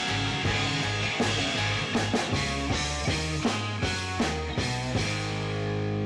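Background rock music with a drum beat. The drums stop about five seconds in, leaving one held chord ringing.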